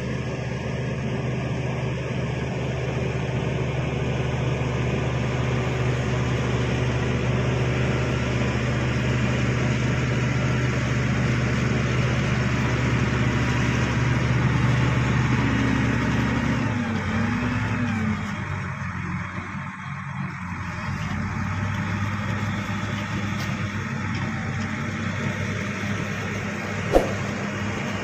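Crawler bulldozer's diesel engine running steadily under load as the machine pushes through wet soil, its note dropping about two-thirds of the way through. A single sharp click near the end.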